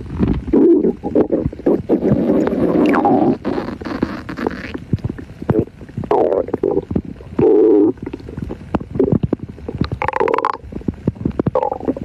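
Stomach gurgling and rumbling: a run of irregular bubbly gurgles and short pops that swells louder several times, with a loud gurgle near the end.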